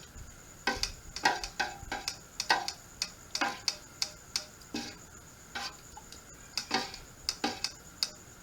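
A steel camp knife chopping firewood: a run of sharp, irregular strikes, about two a second and often in quick pairs, each with a short ring.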